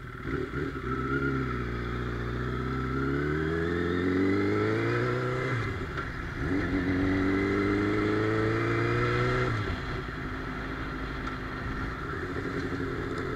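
Motorcycle engine pulling away from a stop and accelerating through the gears: the revs climb steadily for about five seconds, drop at a gear change, climb again, then fall away as the throttle closes about ten seconds in and the bike settles to a steady cruise.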